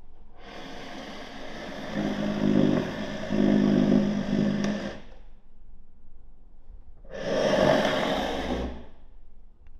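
A chair being moved by scraping it along a floor: a long scrape of about four and a half seconds with a low groaning tone in its louder middle part, then a second, shorter scrape of about two seconds near the end.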